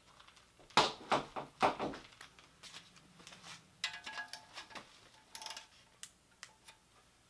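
Metal tool clatter as a long wrench is set onto the oil pickup tube nut: several sharp knocks about a second in, then lighter metallic clinks with a brief ring around four to five seconds in.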